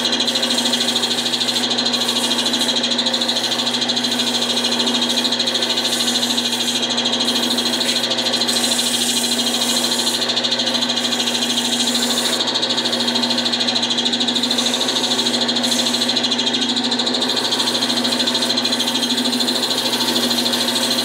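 Wood lathe running with sandpaper held against a spinning spalted pecan bottle stopper blank: a steady sanding hiss over the lathe's motor hum.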